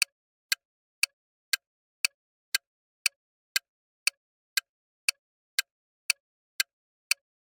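Clock-tick countdown timer sound effect: sharp ticks at an even pace of about two a second, with nothing heard between them.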